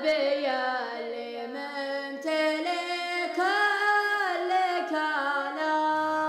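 A young boy's voice singing the opening of a Gulf Arabic sheila, holding long notes that glide from pitch to pitch, with no instruments or beat behind it.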